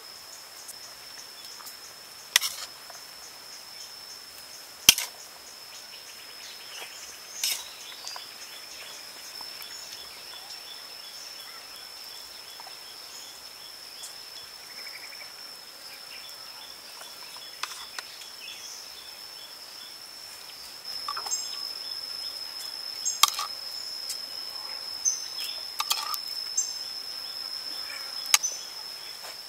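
A steady, high-pitched insect trill runs throughout. Over it come occasional sharp clicks and knocks of a metal spoon and plate as food is handled, more frequent over the last several seconds.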